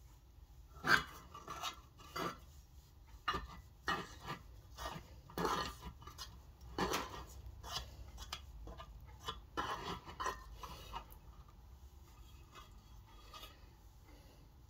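Fingers poking and pressing glossy slime mixed with foam beads against a metal muffin tin: irregular wet squishes, clicks and crackles. They come thick and fast for most of the stretch and thin out to small ticks near the end.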